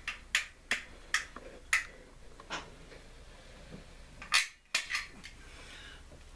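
Irregular sharp clicks and light knocks as a caulk gun is picked up and handled over the track, about ten in all, with a pause in the middle and a louder click just past four seconds in.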